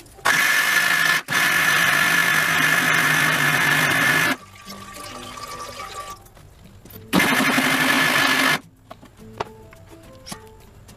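Electric mixer grinder running in two spells, about four seconds and then about a second and a half, grinding soaked rice and urad dal into dosa batter. Between the spells a fading whine can be heard as the motor runs down.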